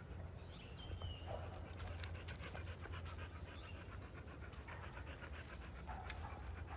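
A dog panting close by in quick, even breaths, in two spells, the first about two seconds in and the second about five seconds in.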